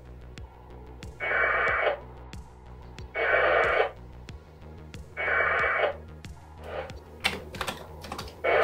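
Short bursts of packet-radio data tones from a VHF amateur radio and modem, each under a second long, coming about every two seconds, with sharp clicks between them.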